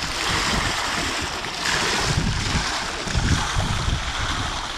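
Water spilling steadily over the infinity edge of a pool and splashing into the trough below, with gusts of wind rumbling on the microphone.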